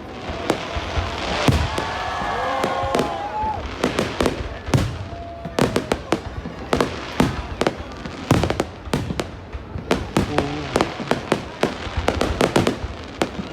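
Fireworks display going off: a dense, irregular run of sharp bangs and crackles throughout, with pitched voices or whistles gliding briefly about two seconds in.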